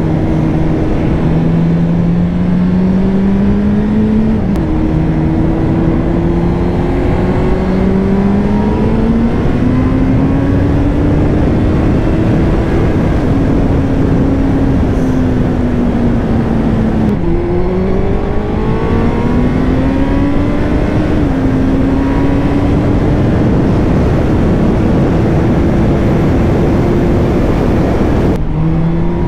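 Honda CB1000R inline-four engine under way on the road, its pitch climbing under throttle and dropping back at several gear changes, over steady wind and road noise.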